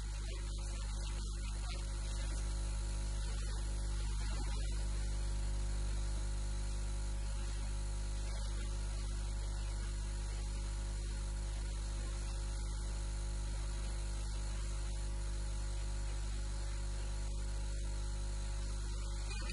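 Steady electrical mains hum, strongest at its deep fundamental, with a buzz of many steady higher tones over it, unchanging throughout.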